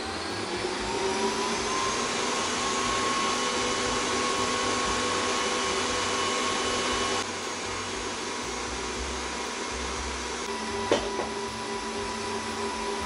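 Kenwood stand mixer motor running, beating butter, sugar and eggs; its whine rises in pitch over the first two seconds as the speed is turned up, then holds steady. One short knock about eleven seconds in.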